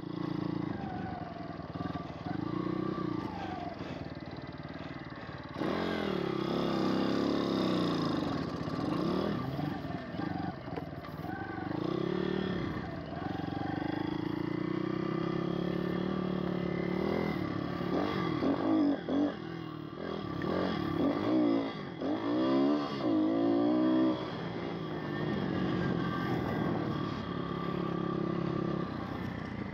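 Pit bike's small single-cylinder four-stroke engine being ridden on a dirt trail, its pitch rising and falling with the throttle. Past the middle it revs up and down in a quick run of swoops.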